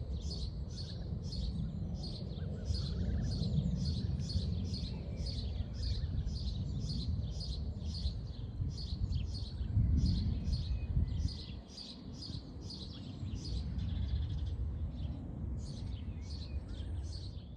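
A small bird repeating a short, high, falling chirp about two to three times a second, with a few brief pauses, over a low steady rumble.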